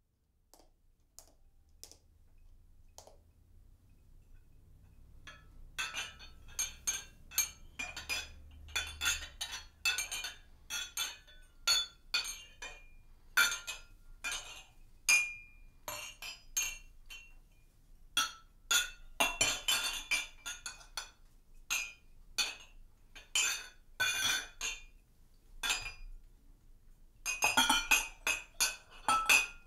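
Small glass and metal percussion objects struck and clinking with bright ringing. A few soft isolated ticks come first. From about six seconds in the strikes come thick and fast, with dense flurries twice later on.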